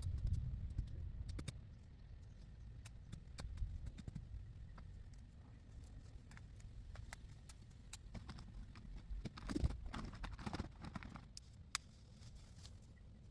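Tree branches and twigs being cut and handled: irregular sharp snaps and clicks, with a denser crunching rustle about ten seconds in. A low rumble under the first two seconds then drops away.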